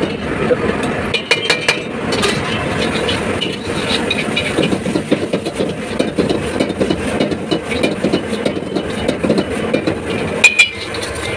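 Stir-frying noodles in a steel wok: a metal spatula scrapes and clanks against the pan over a steady frying and burner noise, with the sharpest clanks near the end.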